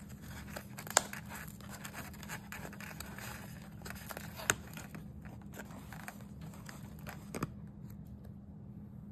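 A folded paperboard Chinese takeout box being pried open, its flaps scraping and rustling, with sharp ticks about a second in and again about four and a half seconds in. A steady low hum runs underneath.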